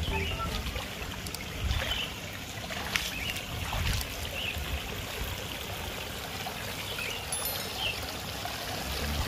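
Water trickling and splashing steadily over the small rock cascades of a man-made stream into its pond.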